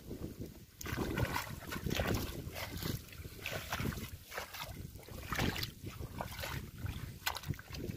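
Shallow muddy water splashing and sloshing as a person wades in it and pulls a mesh net fish trap up out of the water, starting about a second in.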